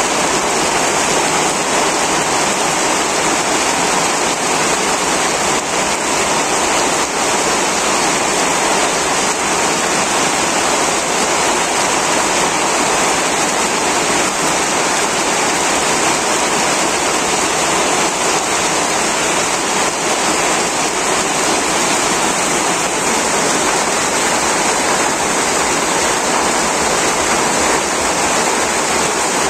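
Heavy rain falling in a steady downpour, with runoff pouring off corrugated metal roof edges onto waterlogged ground.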